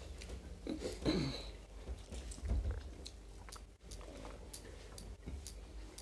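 Close-up chewing and mouth noises of people eating rice and curry by hand, with many small wet clicks and smacks. There is a brief falling vocal sound about a second in.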